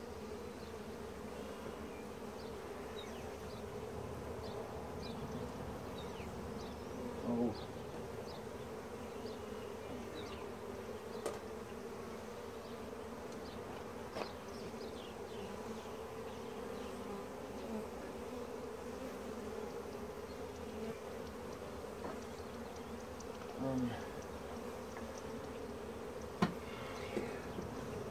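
Honeybees buzzing steadily around an opened hive and its frames, with a few short knocks and a sharp click from the wooden hive parts as frames are handled.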